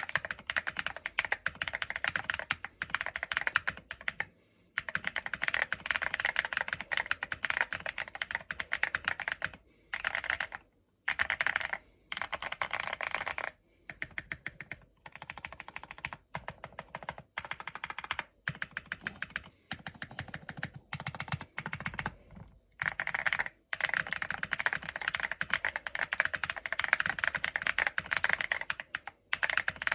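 Typing on a QK65 mechanical keyboard: rapid keystroke clicks in runs of several seconds, with short pauses between runs.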